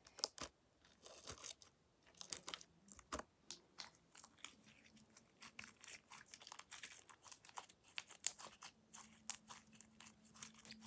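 Homemade glue slime being squeezed and kneaded between the hands, making many small, irregular clicks and crackles.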